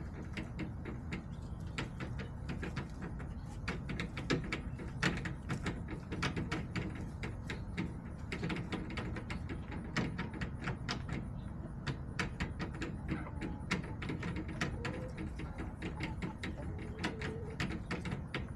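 Chickens pecking, a dense run of quick, irregular taps and clicks on a hard surface, with soft hen clucking near the end.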